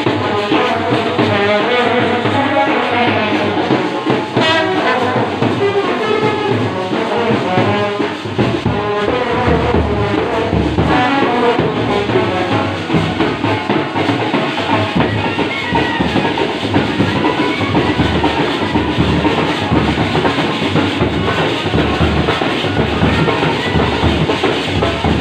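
Indian procession brass band playing: trumpets and clarinet carry the melody over a big bass drum and side drums. The low drum beats grow heavier about eight seconds in.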